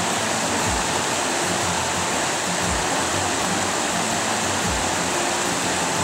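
Steady rush of flowing stream water, an even hiss across all pitches.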